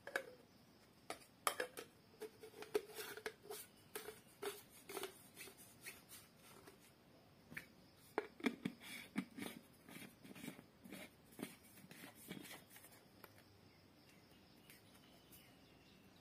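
Quiet, irregular plastic clicks, taps and knocks as the clear jar of a portable USB blender bottle is twisted off its pink motor base and the parts are handled; the motor is not running.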